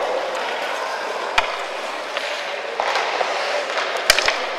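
Indoor ice hockey rink sound: a steady hiss of skates and arena hubbub, one sharp knock about a second and a half in, and a few quick stick clacks on the ice and puck at a faceoff near the end.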